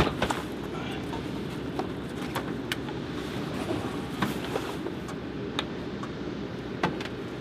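A heavy canvas cover is pulled and fastened over a helicopter's nose. Fabric rustles and scattered sharp clicks and knocks come from the cover's fittings, over a steady low rumble.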